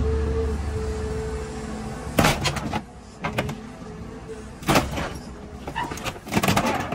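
An excavator's crusher attachment presses down on a small pickup's cab, its machine running with a steady low hum. Sheet metal and glass give way in sharp cracks and crunches, about two seconds in, near five seconds and again around six and a half seconds.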